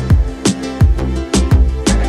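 Background music with a steady beat: a deep drum hit about twice a second over sustained instrumental notes.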